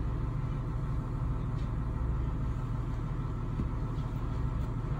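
Steady low mechanical hum, like a motor or engine running, holding an even level throughout.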